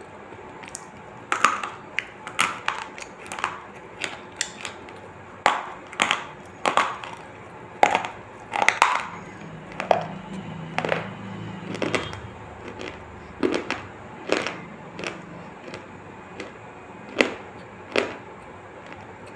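Sharp, crunchy bites and chewing of a hard, brittle grey chalk-like stick, coming at irregular spacing, one or two cracks a second.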